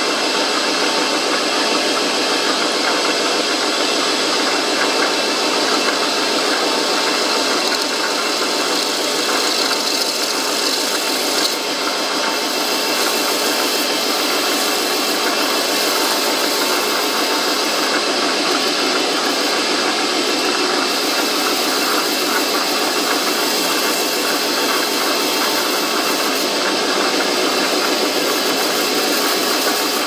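Metal lathe running while its tool cuts a chamber into the face of a brass workpiece, a steady machining noise of motor and cutting that holds even throughout.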